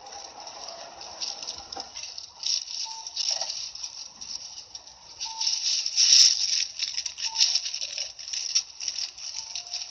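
Rattling and hissing inside an Isuzu Erga Mio (SDG-LR290J1) city bus, uneven and loudest about six seconds in, with a few short faint beeps.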